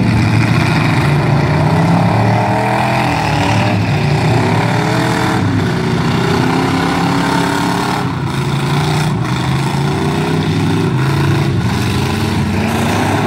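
Demolition-derby vans' engines revving hard as they spin through mud, their pitch rising and falling. A few sharp knocks land from about five seconds in.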